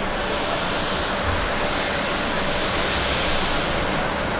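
Boeing 767-300 jet airliner landing: a steady rushing noise of its jet engines and airflow as it touches down and rolls out on the runway.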